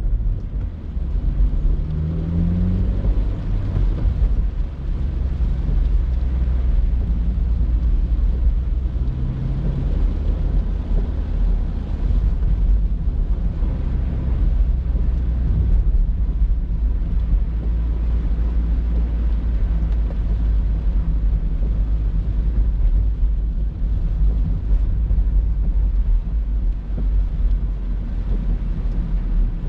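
Honda CR-Z driving: a steady low drone of engine and road noise, with the engine note rising briefly about two seconds in and again near ten seconds as the car accelerates.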